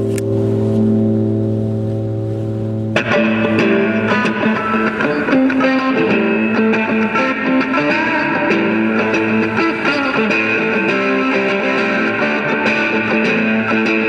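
Electric guitar music: a held, ringing chord for about three seconds, then a busier passage of quick notes comes in.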